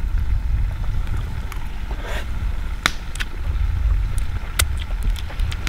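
Wind buffeting the microphone as an unsteady low rumble, with a few light clicks and taps scattered through it.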